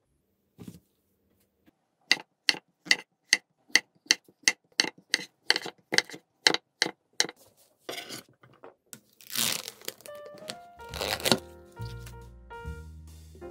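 Chef's knife slicing shiitake mushrooms against a wooden end-grain cutting board: a steady run of about fifteen crisp chops, roughly three a second. Near the end comes a few seconds of tearing, crinkling noise as light piano music starts.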